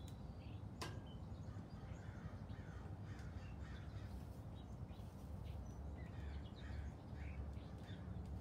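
Crows cawing over and over, short falling calls close together. A sharp click about a second in, from the metal grill tongs, over a steady low rumble.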